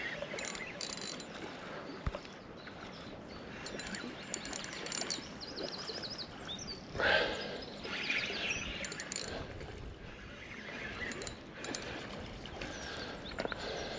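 Spinning reel being cranked to wind in line on a hooked needlefish, its gears and handle clicking and whirring, with a brief louder burst of noise about halfway through.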